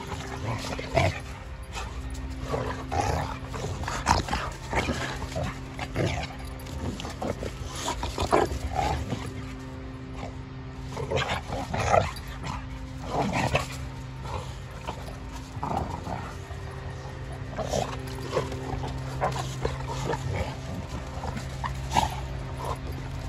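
A pit bull and a boxer play-fighting, with repeated short bursts of growling and snarling at irregular intervals, the loudest about 4, 12 and 22 seconds in.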